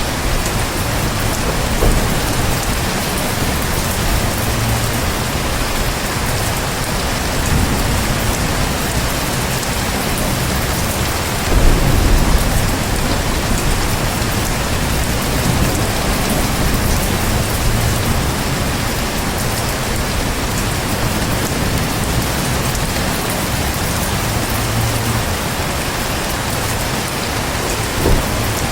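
Heavy rain falling steadily, with a low rumble of thunder swelling briefly about twelve seconds in.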